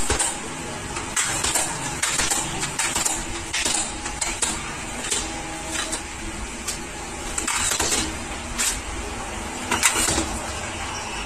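Metal telescopic ladder being collapsed section by section: irregular metallic clicks and clacks as the rung sections slide down and stack onto each other, over steady background noise.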